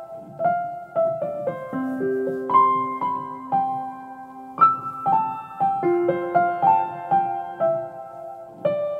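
Background piano music: a simple melody of single struck notes over a few held lower notes.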